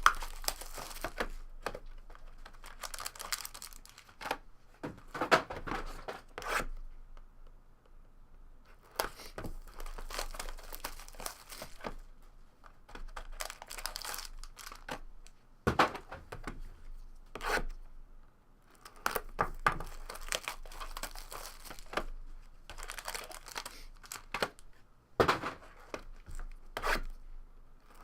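Wrapping on a box of trading cards being torn open and crumpled, in irregular bursts of tearing and crinkling with short pauses.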